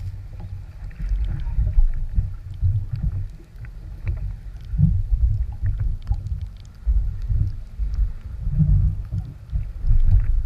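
Muffled low rumble of a jet ski ride, with engine and wind buffeting that rise and fall irregularly as it runs over the waves.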